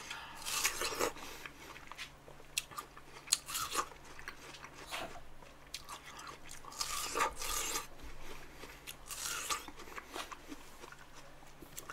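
Biting into and chewing fresh watermelon slices close to a microphone: irregular crisp, juicy crunches of the watery flesh, with a cluster of bites in the first second and more later on.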